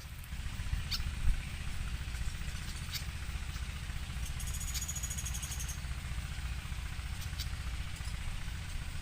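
A small engine idling steadily: a low, even rumble. About halfway through, a rapid high-pitched chittering lasts just over a second.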